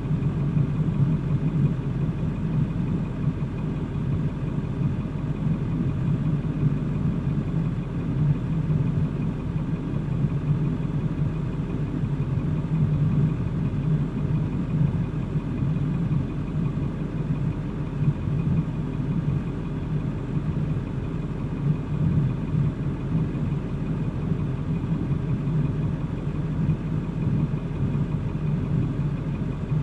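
Motor vehicle engine running steadily at an even low pitch, with no revving or change in speed.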